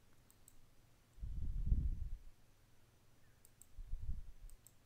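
Faint computer mouse clicks in quick pairs, three times, as an item is picked from a drop-down menu. Between them come two low, dull rumbles that are louder than the clicks.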